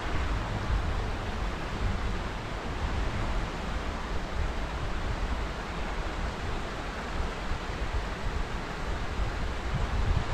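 Wind buffeting the microphone during the open chairlift ride: a steady hiss with a gusty low rumble that swells and fades.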